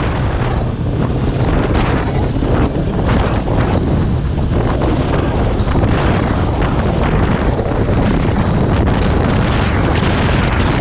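Heavy wind buffeting the camera's microphone on a motorcycle riding at road speed, with the motorcycle's engine running underneath as a steady low drone.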